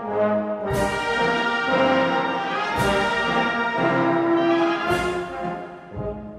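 Band playing a slow funeral march: brass holding sustained chords, with a heavy drum-and-cymbal stroke about every two seconds.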